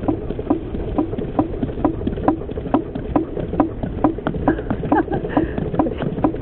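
Donkey's hooves clip-clopping on bare asphalt in a steady rhythm, about two to three hoofbeats a second, over the low rumble of the cart's wheels on the road.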